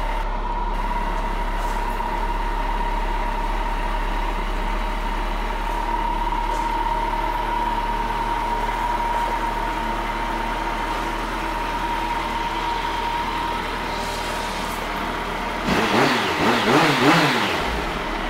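Kawasaki Concours 14 (ZG1400A) inline-four engine idling steadily. Near the end the throttle is blipped, and the pitch rises and falls a few times.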